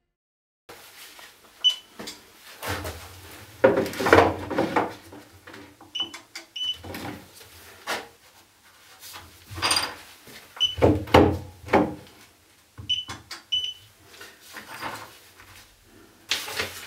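Short high beeps from a handheld laser distance meter, sounding about seven times as measurements are taken. Between them come irregular knocks, rustling and footsteps as the device is handled around a wooden cabinet carcass and notes are written.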